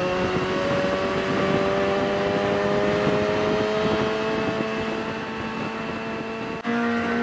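A sport motorcycle's engine running under way over the rush of wind on the helmet camera, its pitch rising slowly and steadily as the bike gathers speed. About six and a half seconds in, the sound cuts off abruptly and a different, steady engine note follows.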